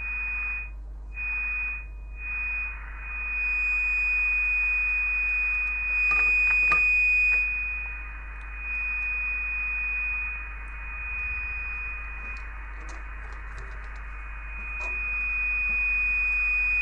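Kenwood TR-751 VHF all-mode transceiver's speaker giving a steady high-pitched beat tone over receiver hiss, from a 10.656 MHz test signal injected into its IF section in USB mode, a sign that the IF stage is working. The tone breaks off and returns three times in the first three seconds, then holds, swelling and fading as the RF gain is turned.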